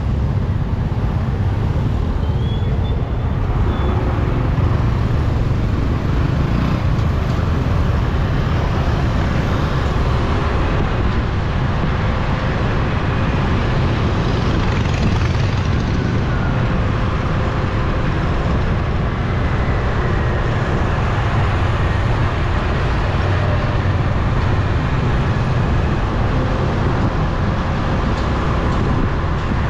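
Motorbike and scooter traffic heard from a moving motorbike: a steady, loud low rumble of engines and road noise that does not let up.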